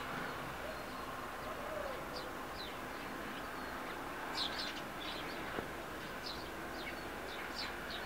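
Small songbirds chirping: short, high, falling calls scattered irregularly, over a steady low background rumble.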